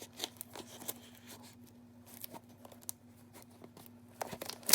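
Pokémon booster bundle packaging being handled: scattered light taps and faint crinkles, with a louder crinkle of plastic and cardboard near the end.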